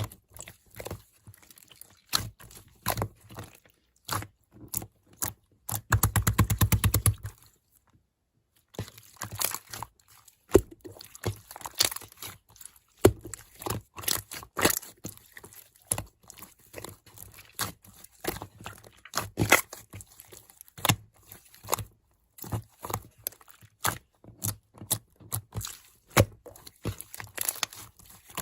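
Slime being played with by hand: a string of sharp sticky clicks and crackling pops, with a fast run of rapid pops about six seconds in.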